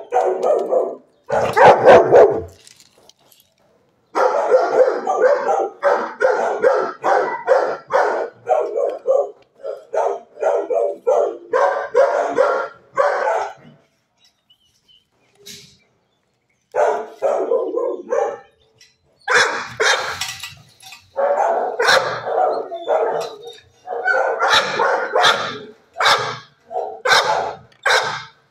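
Dogs barking in shelter kennels, in rapid, repeated runs of barks, with a break of a few seconds about halfway through.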